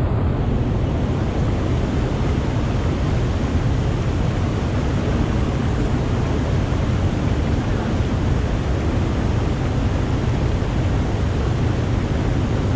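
Mountain stream rushing over boulders and small cascades: a steady, unbroken rush of water.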